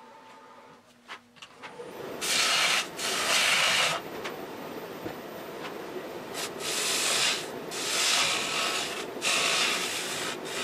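Wood lathe starting up about a second and a half in. A turning tool then cuts the inside of a spinning green (wet) butternut square bowl in hissing, shaving passes: one long cut from about two to four seconds in, then three shorter ones.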